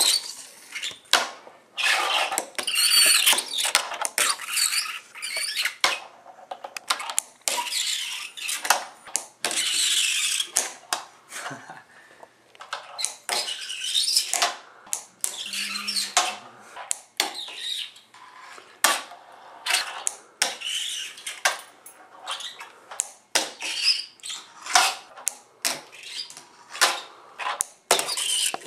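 Fingerboard on Oak fingerboard wheels being ridden: stretches of wheel rolling noise broken by many sharp clacks of the board hitting and landing on a hard surface.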